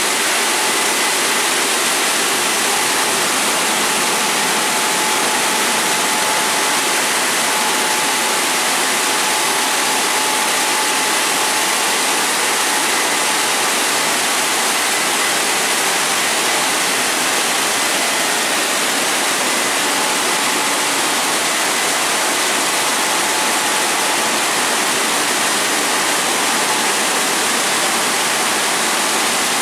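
WashTec Combiwash rollover car wash gantry running a pass over a car: a loud, steady rushing noise with a faint, steady motor whine.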